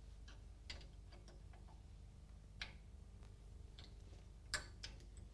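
Scattered light metallic clicks from a spanner and 3/8-drive ratchet working the timing belt tensioner and its bolt on a Rover diesel engine, the loudest click near the end, over a steady low hum.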